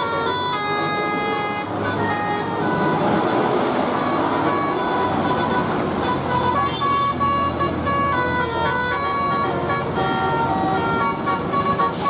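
Tour bus's telolet basuri musical multi-tone horn playing short, repeating melodic phrases over the bus's diesel engine. The tune breaks off about two seconds in, leaving mostly engine sound, and starts again about six and a half seconds in.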